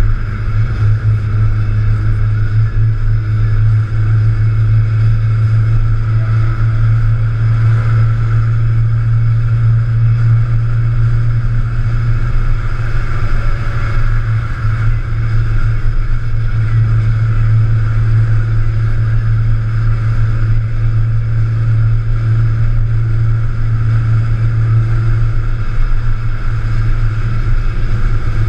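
Porsche 944's four-cylinder engine running steadily at highway cruise, a constant low drone mixed with road and wind noise, heard from inside the cabin.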